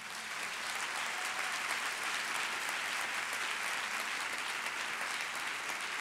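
Audience applauding, building up in the first second and then holding steady.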